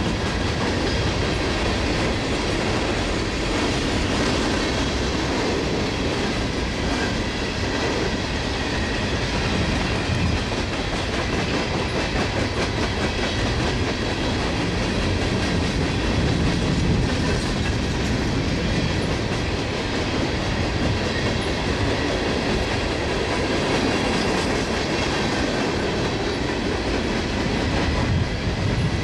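Empty ballast hopper cars of a freight train rolling steadily past on the track: a continuous rumble of wheels on rail with a run of light wheel clicks.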